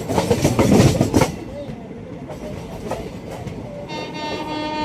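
Train running by with wheels clattering over the rail joints, loudest for the first second or so and then quieter. About four seconds in, a train horn sounds a steady blast.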